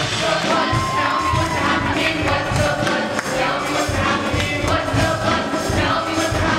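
Stage ensemble of young performers singing a rock-musical chorus over band accompaniment with a steady drum beat.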